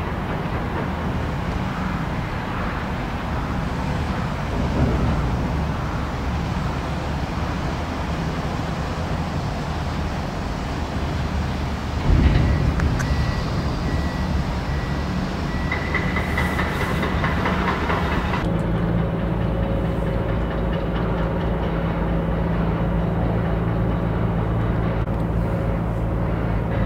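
Steady low mechanical rumble of heavy engines, with a loud knock about twelve seconds in and a thin high whine for a few seconds after it.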